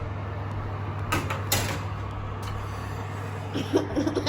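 Metal cake pans being set onto an oven rack: two sharp clanks about a second and a half in, over a steady low hum.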